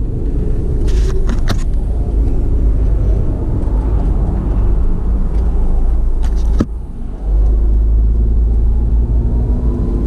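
Car driving: a loud, steady low rumble of road and engine noise, with a few sharp clicks about a second in and a knock about six and a half seconds in, after which the rumble dips for about half a second.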